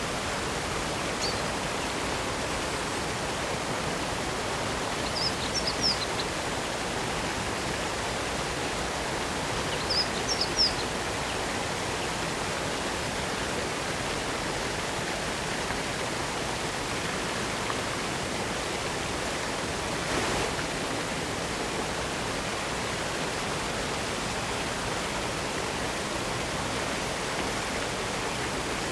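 Spring water of a small waterfall running down a rock face, a steady, even rush. A few short high chirps sound over it near the start and again around five and ten seconds in.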